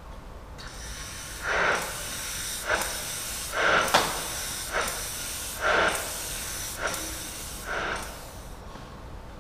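Leather spraying machine surface-dyeing or pigmenting skins: its spray gun hisses steadily, with louder spray bursts about once a second, and the hiss fades away near the end.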